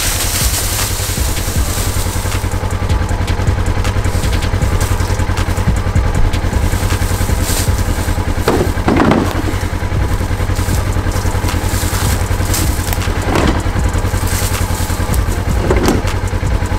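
A vehicle engine running steadily while driving, with a few louder bumps along the way.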